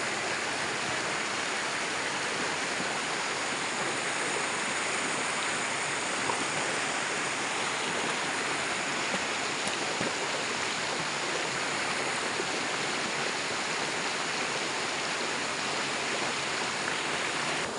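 Shallow rocky river rushing over boulders in small rapids: a steady rush of white water.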